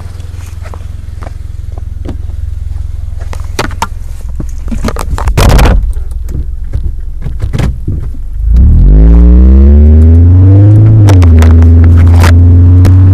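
Scattered scrapes and knocks over a low hum, then about two-thirds of the way through a Mazda CX-5's 2.0-litre four-cylinder with a Corksport aftermarket exhaust and short ram intake comes in very loud and close, its note rising and then holding steady.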